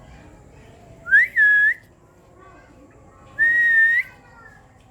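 Two loud, clear whistled notes: the first slides up into a held tone about a second in, the second is held for about half a second a little past the middle.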